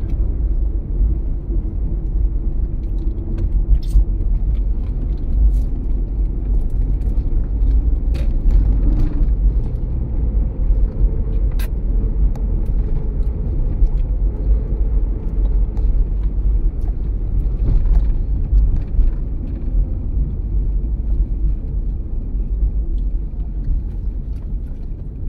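Steady low road rumble heard from inside the cabin of a 2007 Toyota Prius driving along a town street, with a few faint clicks.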